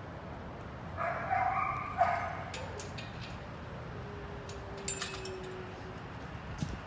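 A dog barking: a drawn-out bark about a second in, followed at once by a short, sharp one.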